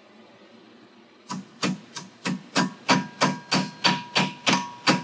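Steel pliers tapping repeatedly on a cotter pin at a castle nut, sharp metal-on-metal strikes about three a second with a ringing tone, starting about a second in. The taps bend the ends of the cotter pin over to lock the nut on the operator's clutch.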